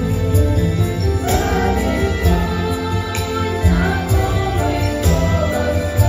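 A girls' vocal ensemble singing together into microphones over a steady instrumental accompaniment with a strong, sustained bass line.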